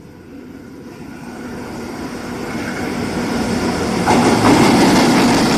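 Freight train hauled by a JR EF64 electric locomotive approaching and passing through a station. Its rumble and wheel noise on the rails grow steadily louder and are loudest as the locomotive arrives alongside, about four seconds in.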